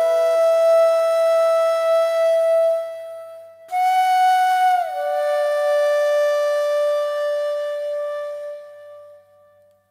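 Solo flute music: a long held note, then a higher note about four seconds in that slides down in pitch and is held until it fades out near the end.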